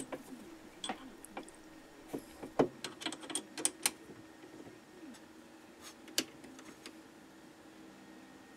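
Scattered light metallic clicks and taps of a T-handle chuck key working the jaw screws of a 4-inch independent lathe chuck, gripping and adjusting a brass bar. They come mostly in the first half, with one more a little after six seconds, over a faint steady hum.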